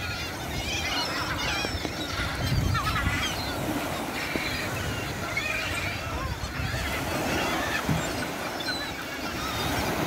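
A flock of large gulls calling, many harsh overlapping calls throughout, over a low rumble from the surf at the water's edge.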